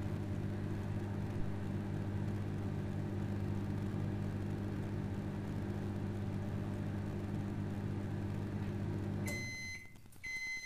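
Microwave oven running at full power with a steady low hum, which cuts off about nine seconds in. Two short end-of-cycle beeps follow.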